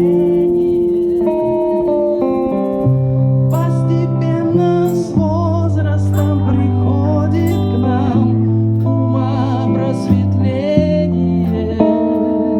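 A song played with guitar and a low bass line, with a wavering, vibrato-laden melody line over the chords that changes every second or two.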